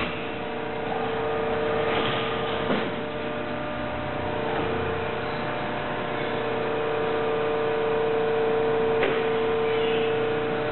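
Steady mechanical hum of factory machinery, with a few faint clicks or knocks.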